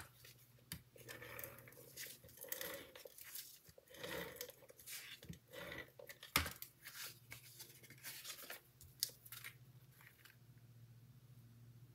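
Tape runner laying adhesive on a cardstock panel in several short strokes, with paper handling and sharp taps as the layers are pressed together; the loudest tap comes about six and a half seconds in.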